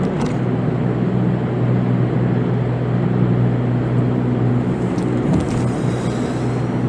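Van's engine running steadily under way, with a continuous road and tyre noise, while driving on a highway.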